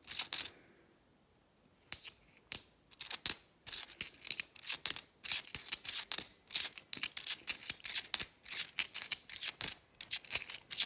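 Cupronickel 50p coins clinking against each other as they are thumbed one by one across a stack held in the palm. A few sharp metallic clicks come at the start, then after a short pause a quick, irregular run of them.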